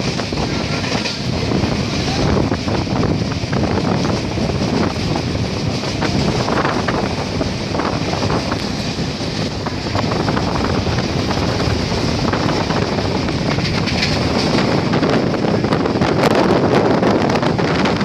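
Passenger train running at speed, heard from inside a carriage: a steady rumble of the wheels on the rails with continual rattling and clicking.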